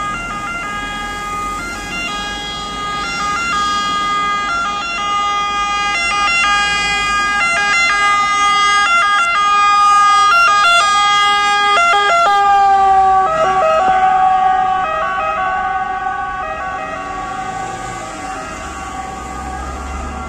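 Ambulance two-tone siren alternating between a high and a low note. It grows louder as the ambulance approaches, drops in pitch as it passes about 13 seconds in, then fades as it moves away, over the sound of road traffic.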